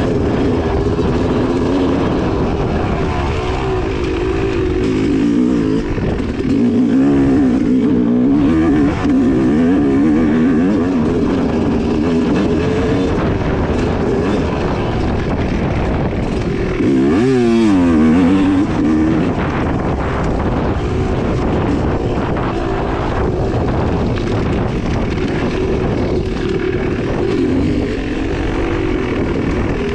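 2016 Yamaha YZ250X single-cylinder two-stroke dirt bike engine working through a rough off-road course, its revs rising and falling with the throttle. Its pitch drops sharply and climbs back about 17 seconds in.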